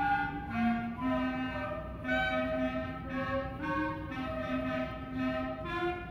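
Elementary school band playing a tune on flutes and brass, with trombones and a large brass horn. A low line and a higher melody move together in held notes that change about every half second to a second.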